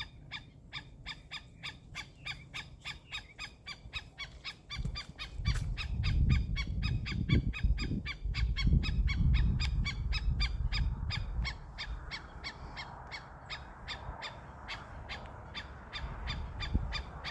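A bird calling a rapid, even series of short notes, about four or five a second, kept up without a break. A low rumble swells under it for several seconds in the middle.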